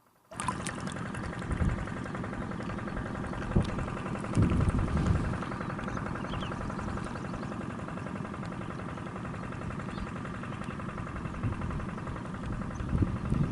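An engine running steadily, starting suddenly, with a few louder low thumps about a second and a half in, around four and a half seconds in, and near the end.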